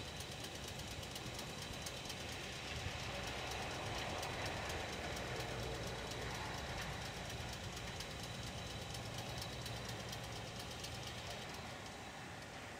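Standing electric streetcars running their on-board equipment: a steady low hum with a fast, even ticking and a faint high whine, easing off near the end.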